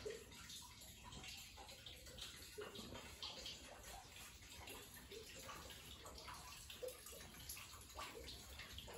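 Near silence: faint room tone with a steady hiss and a few scattered faint ticks.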